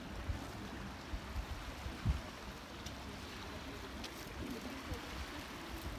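Small waves washing and lapping against shoreline rocks, a steady hiss of water, with irregular low thumps of wind buffeting the microphone.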